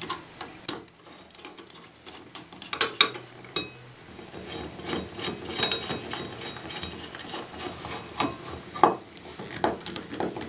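Small metal parts clinking and tapping as a chrome bathtub faucet handle and its retaining screw are handled, then a few seconds of scraping and clicking as the handle screw is threaded in.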